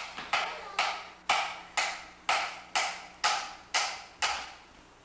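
Hand clapping in a steady beat of about two claps a second, stopping about four seconds in.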